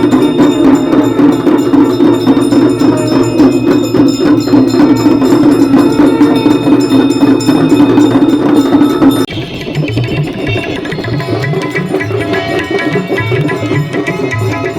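Aarti music of temple bells and cymbals clanging rapidly with drums, loud and dense. About nine seconds in it cuts abruptly to a quieter drum passage.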